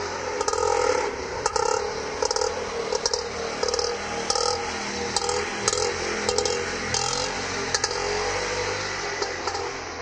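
Auto rickshaw running, its engine humming under loose metallic rattling of the body that comes about once or twice a second. The sound begins to fade near the end.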